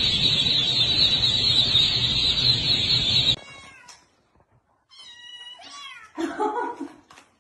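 A dense, steady chorus of peeping from a large crowd of chicks, cutting off suddenly about three seconds in. Then kittens meowing: a few short high meows falling in pitch, the loudest near the end.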